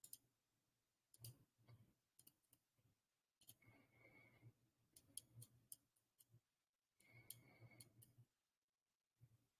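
Faint clicking of a computer mouse and its scroll wheel, in scattered single clicks and short runs, over a low hum that comes and goes.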